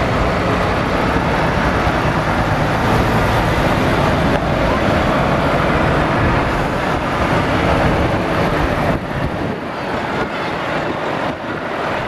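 Diesel engines of heavy tractor units, including Renault T and Scania trucks, running as they drive slowly past at close range one after another. The sound is loud and dense, and it drops somewhat about nine seconds in as a truck moves away.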